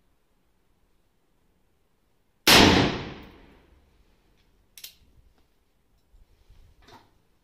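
A single shot from a Pietta Remington 1858 Sheriff .44 black-powder revolver, loaded with 1.5 g of black powder, about two and a half seconds in, its report ringing on and dying away over about a second. About two seconds later comes a sharp metallic click, and near the end a fainter clatter, as the revolver's hammer is cocked for the next shot.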